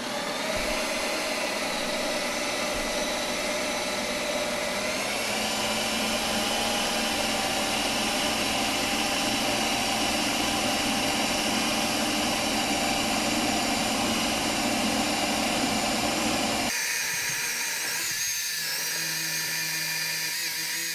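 Ninja Creami ice cream maker running its re-spin cycle, its motor-driven blade spinning through a pint of frozen ice cream base with a steady mechanical whir. The pitch steps up slightly about five seconds in, and the sound changes near the end as the lower noise drops away.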